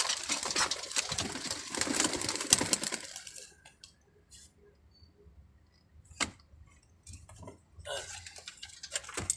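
Rapid, dense rattling clatter for about three seconds, then quiet apart from a single knock, then more rattling near the end as the barred pigeon basket is shifted about.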